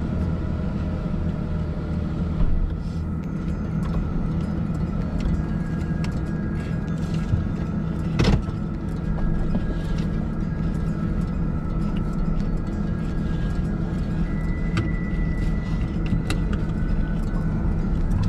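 Car interior noise while driving: a steady low engine and road rumble, with a few short clicks and rustles from a paper takeout bag and fork, the loudest about eight seconds in.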